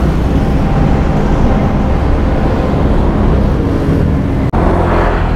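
Street traffic noise: cars and motorbikes passing on a busy road, a steady low rumble.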